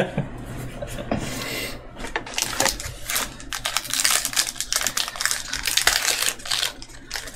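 Magic: The Gathering cards and booster-pack packaging being handled as a pack is opened: rapid dense crackling and clicking, busiest from about two seconds in.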